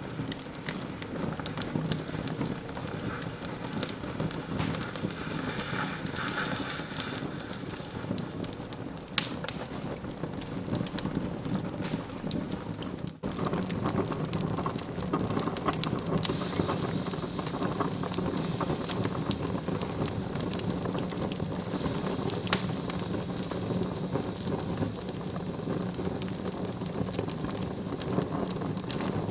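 Wood fire in a fireplace crackling continuously with many small pops, a hiss joining in from about halfway through, and one sharper pop a little after three quarters of the way in.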